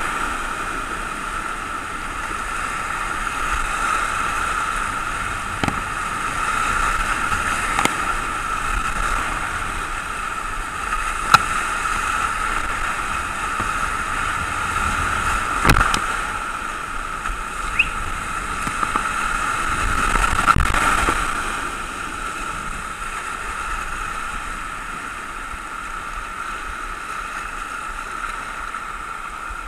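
Whitewater rapids rushing and splashing around a kayak, with a few sharp knocks along the way. The water noise eases in the last third as the boat reaches calmer water.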